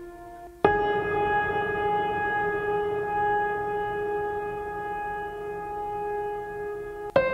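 Background music of long held notes with a wind-instrument-like tone, one pitch at a time. It jumps suddenly to a new, louder note under a second in and changes again near the end.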